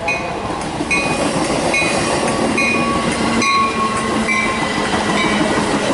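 Metra bilevel commuter train passing close by, its wheels rumbling and clattering on the rails, louder from about a second in. A bell dings steadily about once a second over the train noise.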